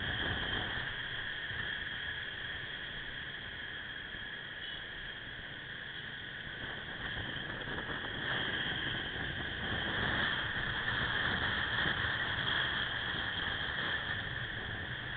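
Wind and road noise picked up by a camera on a moving motorcycle, under a steady high-pitched whine. The noise swells a little from about halfway through.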